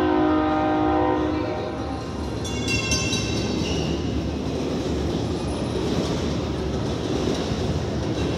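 Train sounds from a projection show's soundtrack: a train horn holding a chord of several notes that stops about a second and a half in, a brief high squeal about three seconds in, then the steady rumble of a train running.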